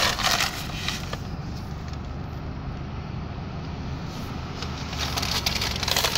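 Car driving slowly, heard from inside the cabin: a steady low rumble of engine and tyres, with crackling noise at the start and building again near the end.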